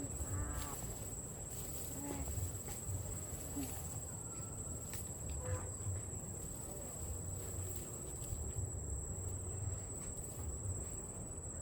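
An insect, likely a cricket, trilling as one steady high-pitched tone, over a constant low rumble, with a few faint short chirps near the start.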